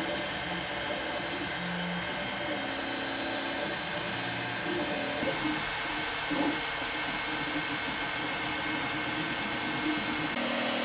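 Longer LK5 Pro 3D printer running a print: a steady whir from its cooling fans, with the stepper motors humming short tones that jump from pitch to pitch as the print head moves.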